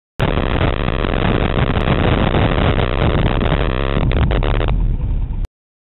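Wind buffeting the microphone of a camera riding on a bicycle descending a mountain road, with a heavy low rumble of wind and road noise. A quick cluster of sharp knocks comes about four seconds in, after which the higher hiss drops away, and the sound cuts off suddenly.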